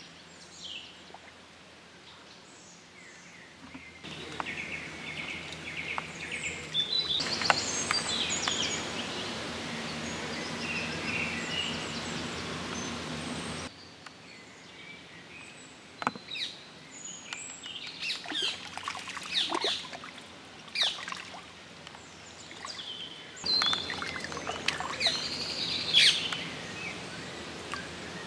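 Small birds chirping and singing over lakeside ambience, with now and then a splash or knock from spawning tench thrashing among the rushes in the shallows.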